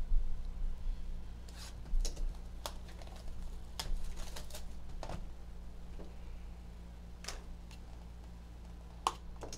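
Plastic shrink wrap being torn and crinkled off a hockey card box, in scattered crackles and rustles, a few sharper clicks among them.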